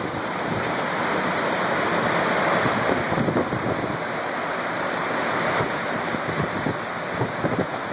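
Strong winds of an EF-4 tornado: a steady rushing noise, with irregular gusts buffeting the microphone.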